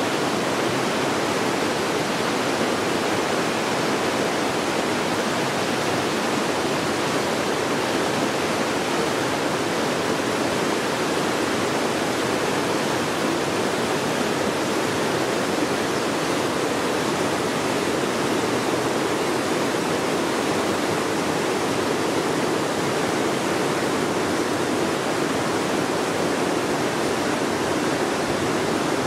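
River water rushing steadily, an even, unbroken noise.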